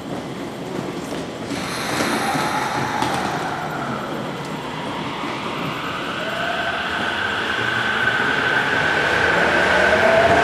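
Toyo Rapid Railway 2000 series electric train pulling out of an underground station. A burst of hiss comes about a second and a half in, then the traction motors start a whine that climbs in pitch and grows louder as the train gathers speed.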